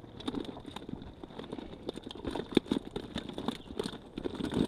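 Fish flapping in a wet weigh sling during weighing, giving a run of irregular slaps and taps.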